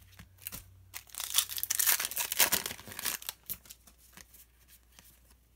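Foil wrapper of a Pokémon TCG booster pack crinkling and tearing as it is ripped open, for about two seconds starting a second in, with a few light clicks of cards being handled around it.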